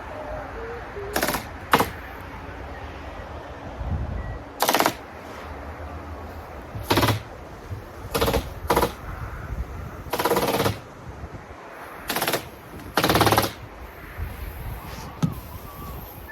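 Rapid-fire "machine gun" stapler shooting staples through ice and water shield membrane, in about nine short bursts of rapid clicks, each under a second long, the longest about two-thirds of the way through.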